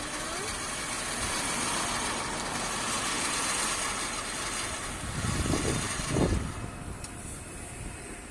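A portable electric water well drilling rig running with a steady, noisy hiss. A few low thumps come near the end, and then the high hiss drops away.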